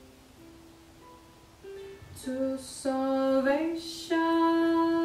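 Background song: quiet sparse instrumental notes, then from about two seconds in a woman singing slow, long held notes.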